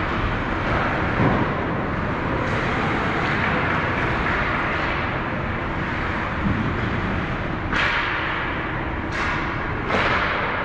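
Ice hockey rink game noise: a steady, loud rumbling hiss, with three sharp scrapes of skate blades on the ice late on, each starting suddenly and fading over about half a second.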